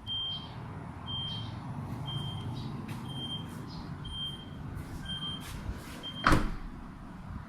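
Aftermarket power tailgate moving under its electric drive: a steady low motor hum with a short high warning beep about once a second. The beeping stops just before a loud sharp thump about six seconds in.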